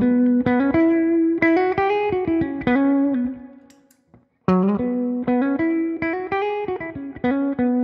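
Clean electric guitar played through a compressor pedal set with high sustain and the compression turned down: a short single-note phrase, a pause of about a second, then the phrase again.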